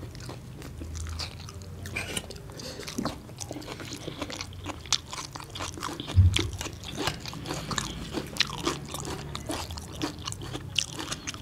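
Close-up eating sounds of two people: crunching bites of raw red onion and chewing of fried bhatura, a run of small crisp clicks and crackles. A dull thump about six seconds in.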